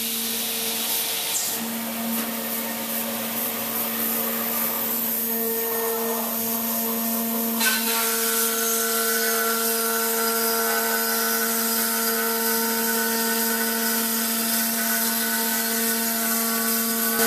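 C.R. Onsrud Panel Pro CNC router cutting 3/8-inch radiata pine plywood: a steady spindle whine over a high hiss. A little before halfway more whining tones join in.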